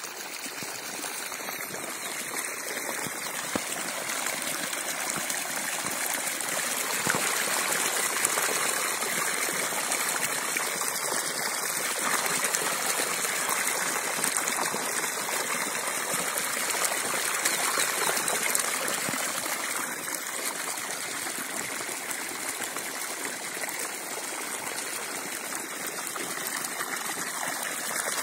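Water gushing steadily out of a 15 hp submersible borewell pump's discharge pipe and splashing onto sacking.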